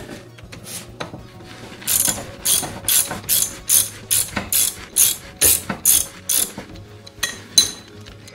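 Socket ratchet wrench clicking in quick repeated strokes, about two or three a second, as the PTO clutch bolt on the underside of the engine is backed off.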